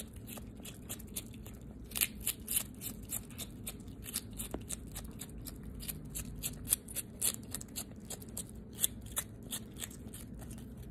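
A skunk crunching and chewing a celery stalk: crisp, irregular bites at about three or four a second.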